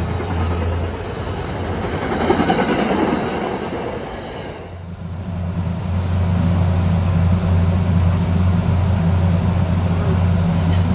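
MBTA commuter rail coaches rolling past a station platform. About halfway through, this gives way to the steady hum and rolling of an electric train heard from on board as it moves through a rail yard.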